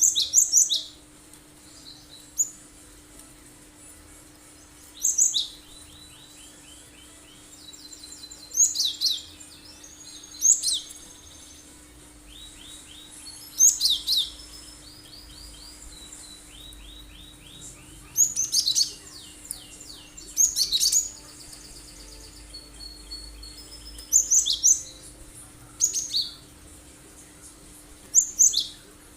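Cinereous tit (gelatik batu) singing in sharp, piercing bursts of high calls mixed with short rattling trills, a burst every two to three seconds.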